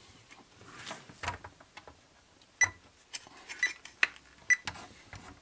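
A multimeter and its test leads being handled and set down: light scattered clicks and knocks, then about five sharper small clicks with a brief metallic ring, roughly half a second apart, in the second half.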